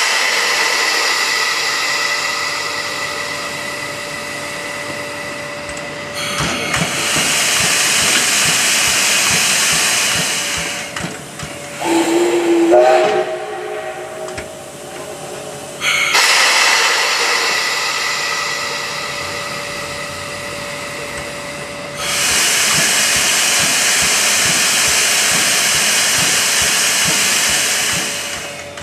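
JNR Class D51 steam locomotive D51 200 letting off steam in several long hisses, each lasting several seconds. About twelve seconds in, its steam whistle gives one short blast that rises in pitch as it sounds.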